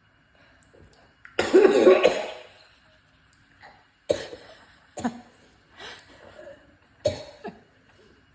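A person coughing after a sip of straight tequila, the spirit burning the throat. One long harsh cough about a second and a half in, then several shorter coughs.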